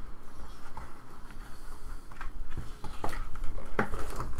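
Trading cards and a cardboard card box being handled on a tabletop: light rustling, then several short taps and knocks in the second half as the lid goes back on the box.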